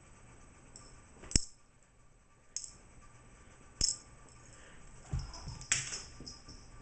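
Small bell on a cat toy jingling in brief shakes, three times, then a few soft thumps and a louder jingle about five to six seconds in.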